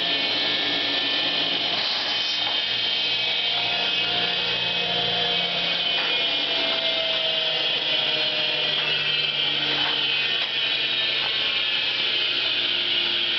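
1912 TUEC Model 210 central vacuum running steadily: its motor and single large impeller make a continuous whir with a high whine of rushing air, the pitch sagging slightly over the stretch.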